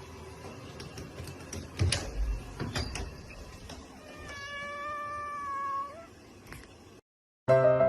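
A cat meowing: one long drawn-out call of nearly two seconds, rising slightly at its end, after a few scattered knocks and thumps.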